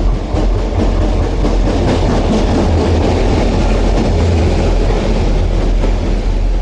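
EMD diesel locomotive passing close by, its engine and wheels loud and steady.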